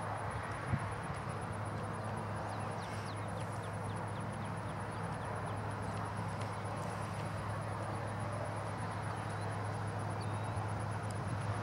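Approaching BNSF diesel freight locomotive heard as a steady low engine hum, with insects keeping up a high, even pulsing trill. A run of short chirps comes about three seconds in.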